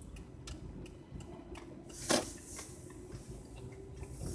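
Faint regular ticking inside a Toyota Prius cabin as the car rolls slowly on electric power with its engine off, over a low steady hum, with one sharper click about two seconds in.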